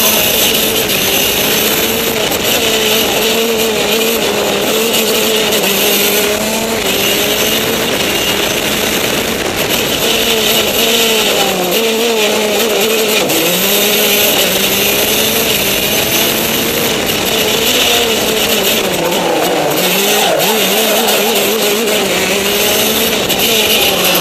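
Go-kart engine heard from on board, running hard down the straights. Its pitch drops and climbs again a few times as the kart slows for corners and accelerates out, under a steady hiss of wind on the microphone.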